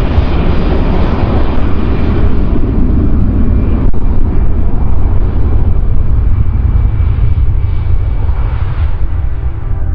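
Jet airliner engines close by: a loud, steady low rumble with a faint high whine, easing off slightly near the end.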